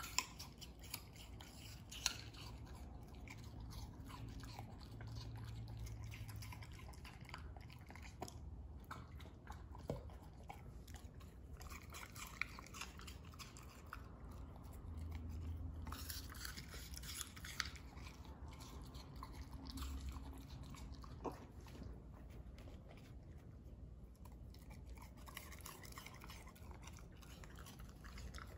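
A corgi chewing and crunching its dinner of vegetables, with sharp clicks now and then.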